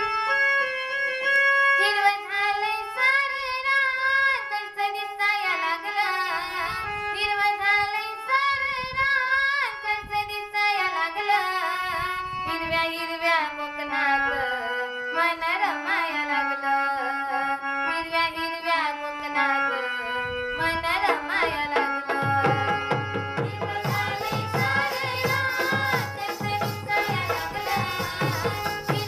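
Konkan Jakhadi folk song: singing with hand-drum accompaniment. About two-thirds of the way through, the drums come in strongly with a fast, steady beat under the melody.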